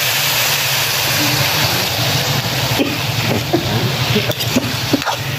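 Fried tofu cubes sizzling hard in hot oil and soy sauce in a wok, a loud steady hiss with a low steady rumble under it. A few short knocks and brief voices come in the second half.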